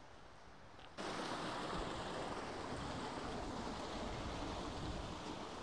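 Steady rush of river water, cutting in abruptly about a second in.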